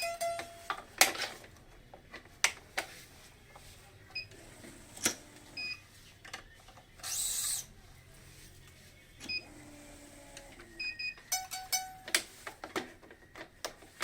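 Badminton racket being strung on a stringing machine: sharp clicks and knocks, several pairs of short high beeps, a brief hiss about seven seconds in and a quick run of ticks near the end.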